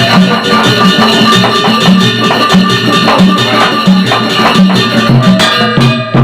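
Wayang Sasak gamelan ensemble playing a gending: a steady low beat under many sharp percussive strokes and ringing held tones, with a brief dip in loudness near the end.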